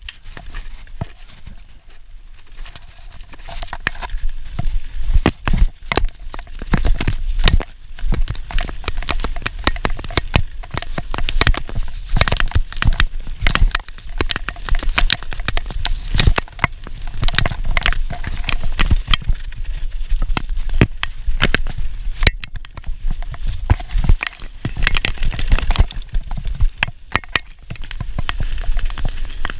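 Mountain bike descending a trail at speed, heard from the on-board camera: tyres rumbling over the ground with a constant stream of sharp knocks and rattles from the bike, and wind buffeting the microphone. It builds from quieter to loud over the first few seconds.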